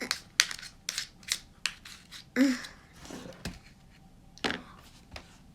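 Kinetic sand being worked with plastic moulds and tools: short crisp scrapes and taps, about six close together in the first two seconds, then a few more spaced out.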